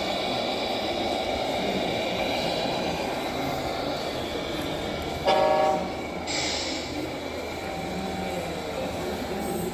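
Steady engine rumble with one short horn blast about five seconds in, followed by a brief hiss.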